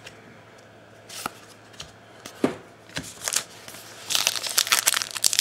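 Baseball cards being flicked through by hand, a few soft card slaps, then about four seconds in the dense crinkling of a foil Allen & Ginter card pack wrapper being handled.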